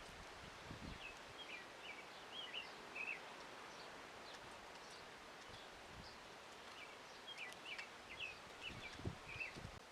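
A songbird singing two runs of quick, short chirping notes, one starting about a second in and another about seven seconds in, over a steady hiss of outdoor background noise. A few soft, low thumps near the end.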